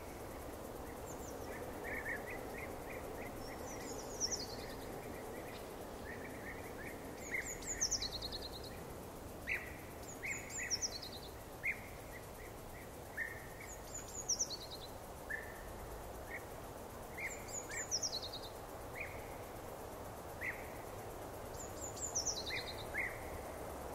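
Wild birds singing: one repeats a short, high, falling phrase every three to four seconds while other shorter chirps sound lower down, over a steady faint background hiss.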